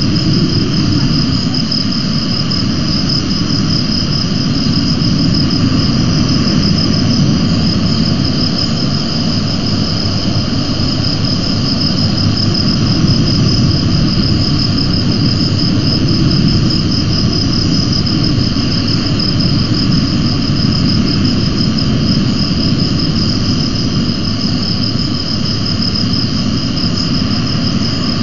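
Steady high-pitched insect trilling, as a continuous chorus, over a constant low rumble of wind and surf.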